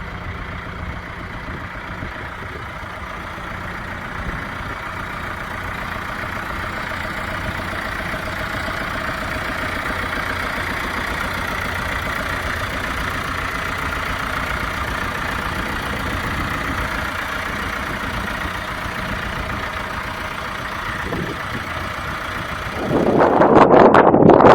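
John Deere 2750 tractor's four-cylinder diesel engine idling steadily, slowly growing louder. Near the end a sudden loud rush of wind noise on the microphone covers it.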